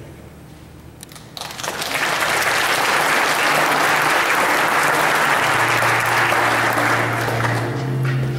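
Audience applauding, breaking out about a second and a half in after a brief hush. A low steady tone comes in under the clapping in the second half.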